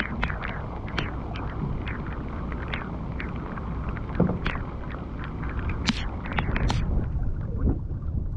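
Rain falling, with many irregular drop hits close by, the sharpest cluster about six to seven seconds in, over a low wind rumble on the microphone.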